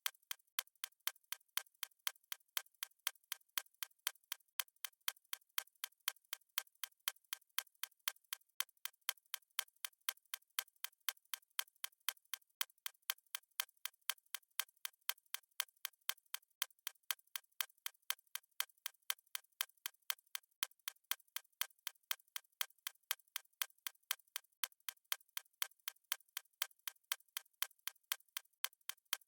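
Clock-style ticking sound effect of a countdown timer: a steady, even stream of sharp ticks, several a second, thin and bright with no low end.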